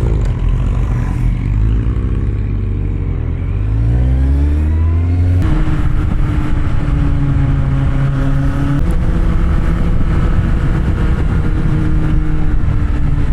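Kawasaki Z750R's inline-four engine pulling up through the revs for about five seconds. Its pitch then drops suddenly at an upshift, and it runs on at a fairly steady engine speed.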